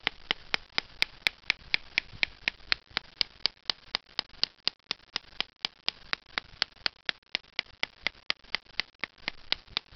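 Steady, even tapping on a green willow stick, about four knocks a second, beating the bark so that it loosens and can be slipped off to make a whistle.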